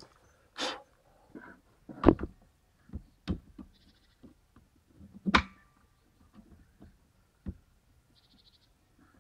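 A few separate knocks and clicks of hard objects being handled, with no motor running; the loudest come about two seconds in and a little past five seconds.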